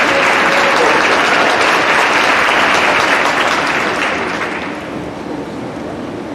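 Audience applause, loud for about four seconds and then dying down to quieter scattered clapping.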